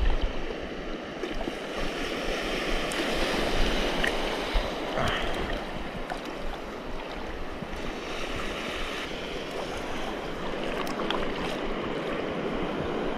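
Small sea waves washing on the shore, a steady rushing noise with a few faint clicks.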